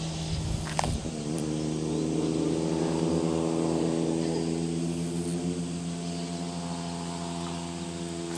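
A motor engine running steadily, holding an even droning pitch that wavers slightly early on, with one short sharp click just under a second in.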